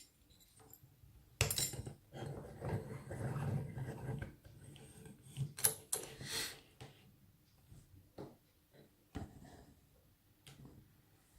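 Handling of an Abus 83 brass padlock and lockpicking tools: light metal clicks, taps and scraping in the first half, then scattered clicks with one sharp click late on.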